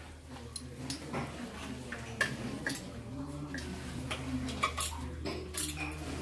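Scattered metallic clicks and short clinks of a screwdriver working at the foot of a metal shelf bracket on the wall, some with a brief ring.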